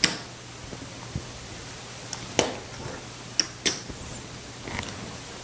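Casino chips clicking together as they are picked up and stacked by hand from the craps layout: a sharp clack at the start, another about two and a half seconds in, and two close together a second later, over a faint steady hum.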